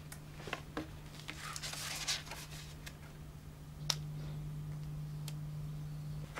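A steady low hum with scattered light clicks and taps, and a short rustle about two seconds in. A sharp click comes near four seconds, where the hum gets slightly louder.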